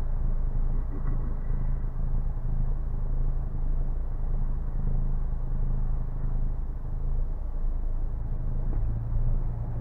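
Mk7 Volkswagen GTI's turbocharged 2.0-litre four-cylinder through a 5150 Racing aftermarket exhaust, a steady low drone at an even engine speed, without revving.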